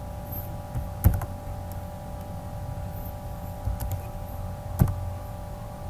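A few separate computer keyboard keystrokes, the clearest about a second in and near the five-second mark, over a steady electrical hum.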